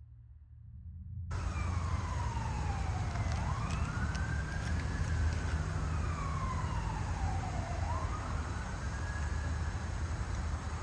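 Emergency vehicle siren in a slow wail, its pitch falling slowly and then rising quickly about every four and a half seconds, over a steady low rumble. It cuts in suddenly about a second in.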